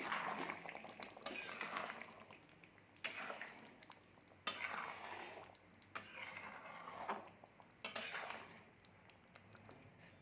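A spoon stirring chicken curry in a metal cooking pot, scraping against the pan in about six strokes, each starting sharply and fading over a second or so.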